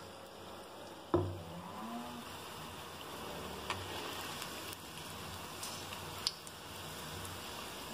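Potato bondas deep-frying in hot oil in an aluminium kadai, a steady sizzle. A sharp knock comes about a second in, and a few lighter clicks follow as a slotted metal spatula stirs them in the pan.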